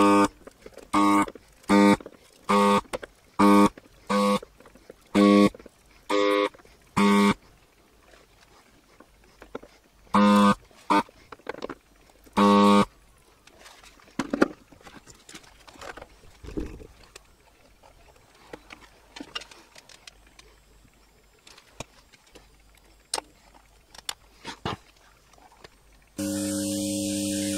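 Vacuum pump of a desoldering gun buzzing in short bursts, about one a second at first and then two more spaced out, as molten solder is sucked from a chip's pins. A few faint taps follow, and near the end a steady hum with hiss begins.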